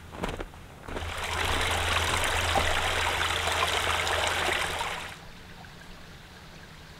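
A small mountain creek trickling and babbling, coming in about a second in and cutting off abruptly about four seconds later.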